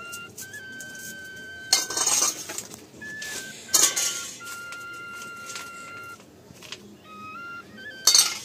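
Steel kitchen bowls clinking and clattering three times, about two, four and eight seconds in, while garlic is peeled into them. Under it runs a thin background tune of held notes stepping from pitch to pitch.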